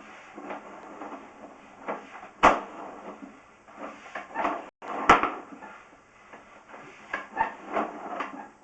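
Sewer inspection camera's push cable being forced through the sewer line, knocking and clattering irregularly, with two sharp bangs, one a couple of seconds in and another about halfway through.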